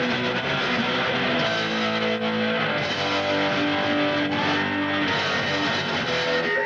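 Hardcore punk band playing live, distorted electric guitars ringing out long held chords that change every second or so.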